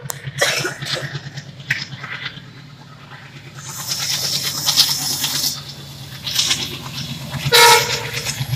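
WDM3A diesel locomotive engine rumbling with a steady pulsing beat as the train runs past at a distance. A short high call is heard near the end.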